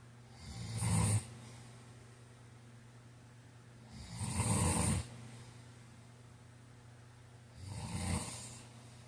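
A man snoring: three snores about three and a half seconds apart, each lasting about a second, swelling and then breaking off.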